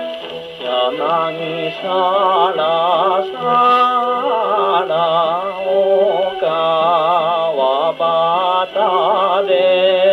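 Columbia G-241 acoustic portable gramophone playing a 1953 78 rpm record: a man singing with a wide, wavering vibrato over instrumental accompaniment, the sound thin and lacking any high treble.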